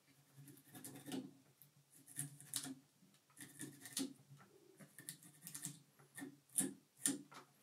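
A dubbing brush raking through glittery synthetic dubbing on a fly, making quick, irregular scratchy strokes, a couple a second.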